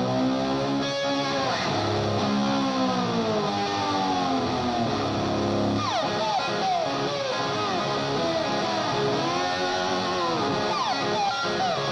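Live rock band with an electric lap steel guitar played with a slide: long held notes that bend, then many quick slides up and down in pitch.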